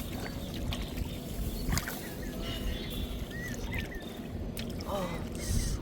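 Water sloshing and splashing in a shallow ditch, with a few knocks and several short high chirps.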